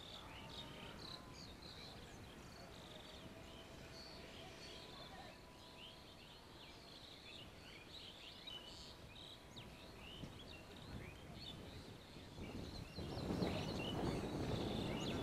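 Faint outdoor ambience of many small birds chirping, with a faint steady tone underneath in the first half. About 13 seconds in a louder rush of noise, like wind on the microphone, comes up over it.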